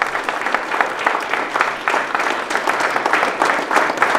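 Applause from a room full of people, many hands clapping steadily.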